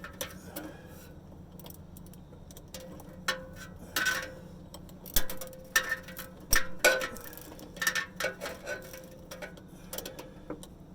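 Irregular metallic clicks and clinks of ratcheting gear wrenches being worked by hand, their ratchets stiff and seized from rust.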